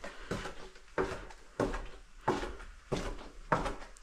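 Footsteps: about six steady, evenly spaced steps, roughly two-thirds of a second apart, each a sharp knock with a short ring in a small room.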